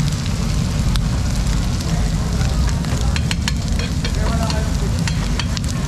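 Pork sisig sizzling steadily on hot iron sizzling plates over gas burners, with a continuous low rumble underneath. A few sharp clicks come about three seconds in.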